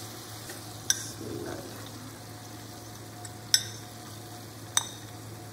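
Three sharp clinks of a utensil against a ceramic plate and steel wok as ground spice mix is tipped into frying masala. There is a brief scrape between the first two clinks and a steady low hum throughout.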